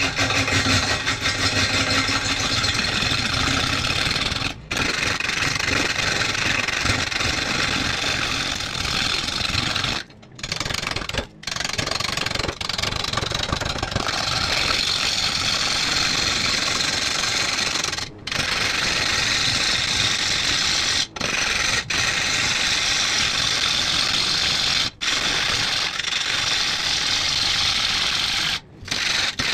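Half-inch Sorby gouge roughing a large blue pine bowl blank spinning on a wood lathe at about 350 RPM: a steady, loud cutting and scraping noise of the tool on the turning wood. It breaks off briefly several times when the gouge leaves the wood.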